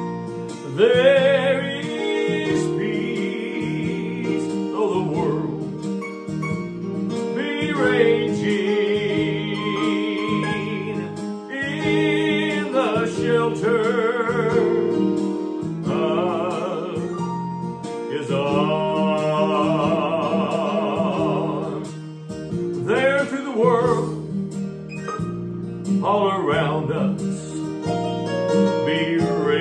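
A gospel song: a singer holding long, high notes with a wide vibrato over acoustic guitar accompaniment.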